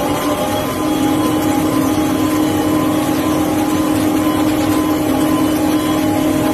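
Oil drilling rig floor machinery running: a loud, steady drone of engines and hydraulics with a constant humming tone.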